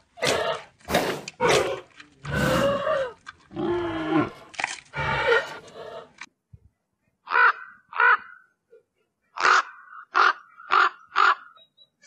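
A large animal gives a run of loud, rough calls that waver in pitch. About seven seconds in, a bird gives six short, harsh, crow-like caws.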